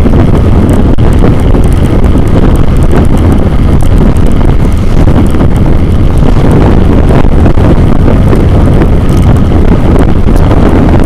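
Loud, steady wind buffeting on a Xiaomi Yi 2K action camera's microphone as it moves along the road at speed, with a deep vehicle rumble under it.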